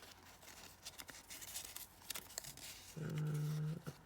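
Light rustling and small clicks of hands handling small plastic and paper packaging pieces. About three seconds in, a woman gives a short, steady closed-mouth hum, 'mmm'.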